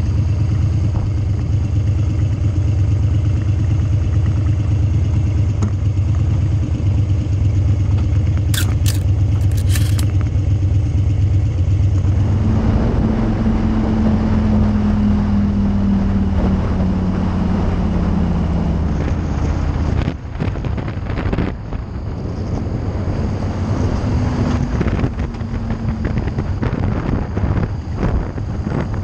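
Harley-Davidson Street Bob's V-twin engine running while under way. About twelve seconds in, wind noise on the microphone grows much louder over the engine, then comes and goes in gusts toward the end.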